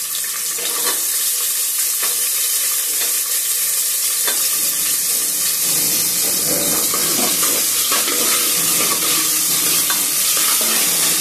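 Chopped onions sizzling steadily in hot oil in an aluminium pressure cooker, stirred with a steel ladle that clicks and scrapes against the pot.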